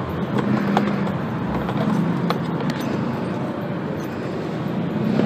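Handling noise from a phone being taken off a scooter's handlebar mount: rubbing and a few sharp clicks over a steady low hum.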